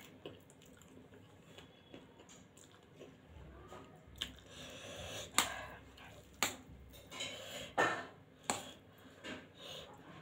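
Close-mic eating sounds: a fork clinking and scraping against a steel plate while twirling spicy instant noodles, with chewing and slurping of noodles. It is quiet at first; the sharp clinks come in the second half.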